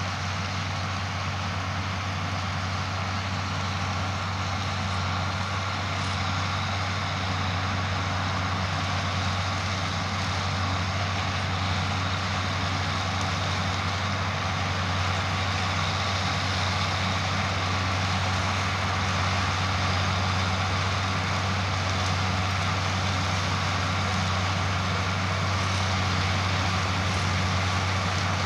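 Diesel engines of a potato harvester and its tractor running steadily in the field, a constant low hum under a broad mechanical noise, growing slightly louder.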